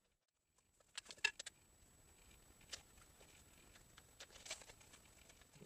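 Faint clicks and taps of hands working on a wooden arrow shaft while sewing on its fletching: a quick cluster of clicks about a second in, a single click near the middle, and a few more past four seconds.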